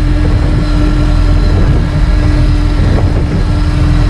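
The Bayliner Capri's sterndrive engine runs steadily with a constant low drone and a steady hum, with wind buffeting the microphone. The motor sounds good.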